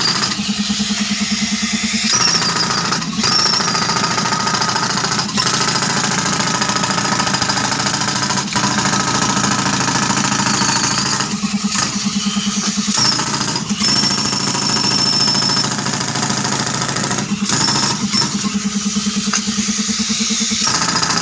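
Pneumatic breaker (air-powered jackhammer) hammering rapidly into the rock floor of a well being dug, driven by a tractor-powered air compressor whose engine runs underneath.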